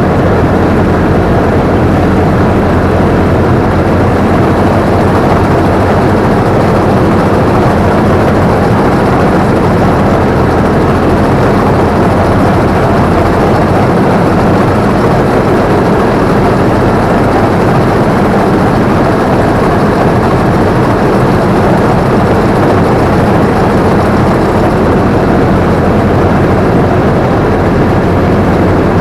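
Combine harvester engine and machinery running steadily and loudly, with a constant low hum, heard close up from the operator's seat.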